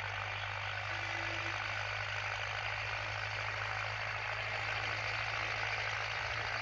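Tractor's diesel engine running steadily under load while it pulls a disc harrow through tilled soil.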